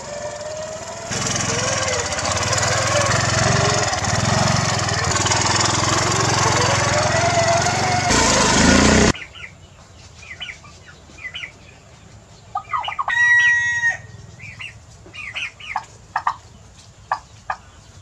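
A small motorcycle engine runs as the bike rides over grass, its pitch rising and falling, then stops abruptly about nine seconds in. After that, domestic turkeys call in short separate bursts, with one longer call a little past the middle.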